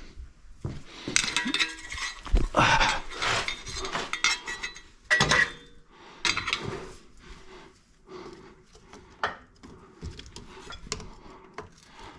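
Metal hand tools and parts clinking and rattling as they are handled and set down, with irregular clicks and scrapes that are busiest in the first half and sparser later.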